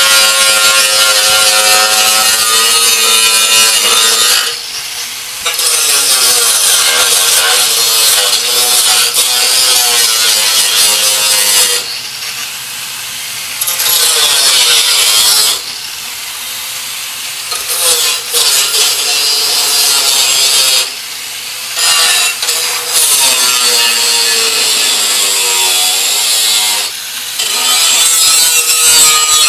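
Corded angle grinder cutting into the rotted-out steel of a riding-mower deck: a loud grating screech over the motor's whine, sparks flying. About five times it drops away for a second or two as the disc eases off the metal, then bites in again.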